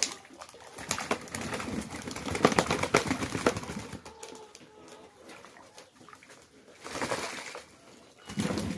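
Pigeons bathing in a plastic basin of water, beating their wings and splashing, in a dense flurry from about a second in to mid-way and again in short bursts near the end, with pigeons cooing.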